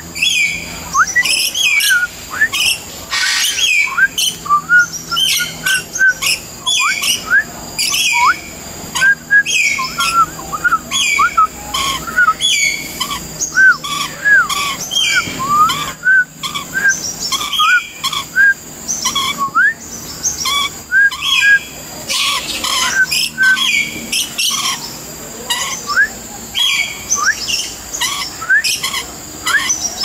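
Many birds calling at once: short rising whistles and repeated chirps, several a second, with no pause.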